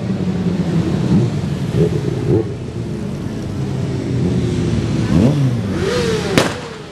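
Motorcycle engines running as several bikes ride slowly past, with one engine revving up and down about five seconds in. A single sharp bang sounds near the end.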